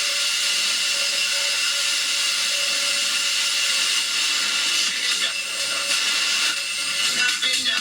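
Static hiss from a Salyut-001 radio's VHF (FM) receiver tuned between stations, steady and even, with a faint steady tone under it.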